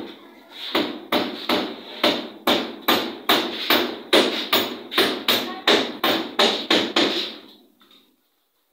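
Steady hammering on wood, about two to three sharp blows a second, dying away about seven seconds in.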